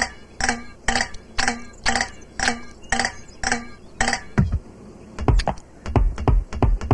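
Evenly spaced percussive ticks, about two a second, like a clock ticking in a cartoon soundtrack. After about four seconds they give way to a faster run of low thumps and clicks.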